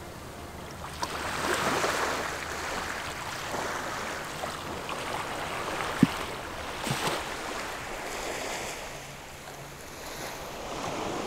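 Small waves lapping at a sandy river shore, swelling and easing, with a sharp knock about six seconds in and a fainter one soon after.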